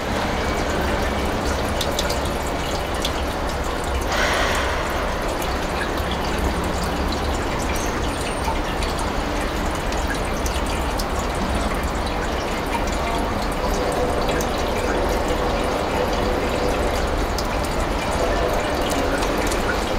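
Water running steadily from a bamboo spout into a stone basin, briefly louder about four seconds in, over a steady low hum.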